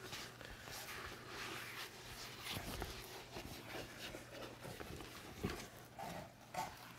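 Soft rustling and flapping as a rolled cloth desk mat is unrolled and held up, with a light knock about five and a half seconds in.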